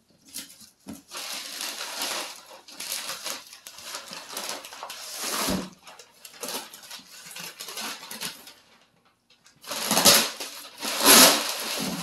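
Paper wrapping being torn off a large cardboard box and crumpled: loud crackling and rustling in two long bouts, the second near the end the loudest, with quieter rustles between.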